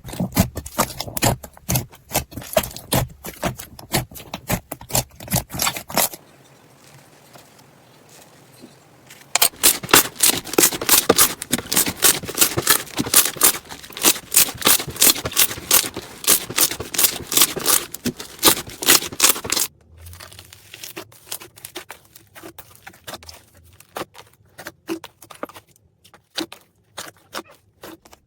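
Slime being squeezed, stretched and poked by hand, making rapid crackling clicks and pops. The crackling goes quiet for about three seconds some six seconds in, comes back dense, then turns sparser near the end.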